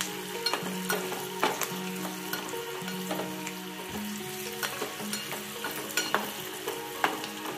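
Garlic and green and dried red chillies sizzling as they fry in hot oil in a small steel pot for a tempering. A steel spoon stirs them and clicks against the pot now and then.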